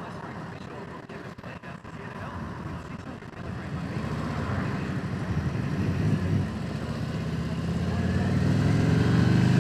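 Harley-Davidson Ultra Limited V-twin engine running under wind buffeting, picked up by a helmet-mounted Sena 10C EVO microphone. The engine note grows louder over the second half.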